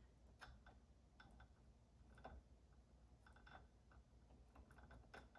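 Faint, irregular light clicks and taps of a plastic cable connector being handled and pushed onto a motherboard's USB header pins.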